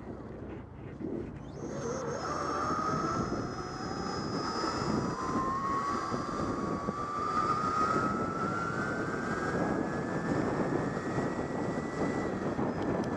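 Electric bike's motor whining, its pitch climbing steadily as the bike gathers speed and starting to drop near the end. Heavy wind noise rushes over the microphone throughout.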